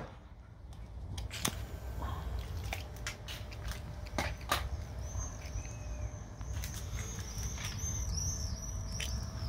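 Small birds chirping: a run of quick, repeated high chirps in the second half, over a low steady rumble, with a few scattered clicks.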